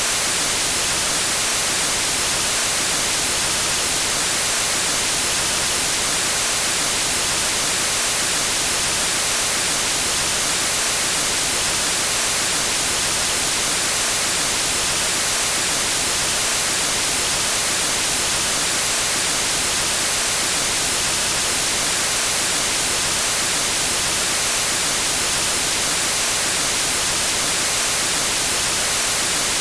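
Steady television static: a loud, unchanging hiss, strongest in the high end, with no breaks.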